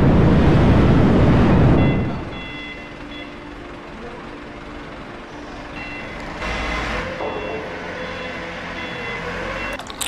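A furnace burner firing with a loud, even roar for about two seconds, then dropping away. A quieter machine hum follows, with runs of short electronic beeps like a warning beeper.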